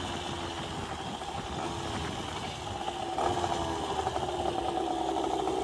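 Minarelli two-stroke engine on a motorized bicycle, fed by a Mikuni VM20 carburettor and running through a gutted silencer. Its pitch sags slowly, then picks up and gets louder about three seconds in.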